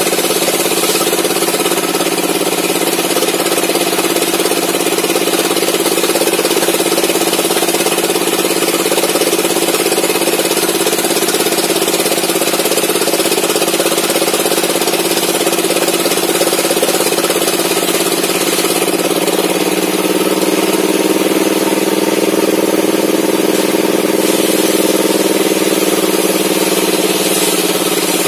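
Engine-driven homemade table saw running steadily as a mahogany timber is fed through the blade. The engine note lifts slightly about two-thirds of the way through.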